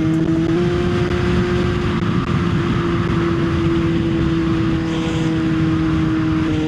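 Kawasaki Z900's inline-four engine running steadily at highway speed, its pitch stepping up slightly about half a second in, with heavy wind noise rushing over the microphone.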